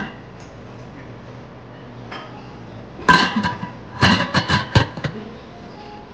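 Lid of a stainless steel buffet pot clanking on the pot's rim as it is lifted and set back. There is one ringing clang about three seconds in, then a quick run of four or five metallic clinks and clanks about a second later.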